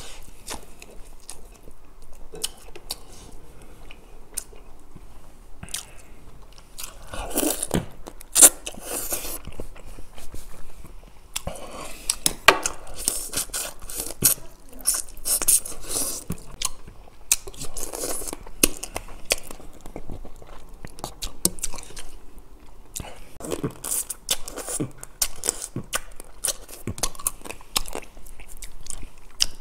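A person biting and chewing soy-sauce-marinated raw blue crab held in the hands, in repeated bursts of wet eating noise with many sharp clicks.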